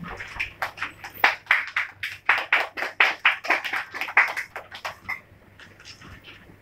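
A small group of people clapping for about five seconds, then dying away near the end.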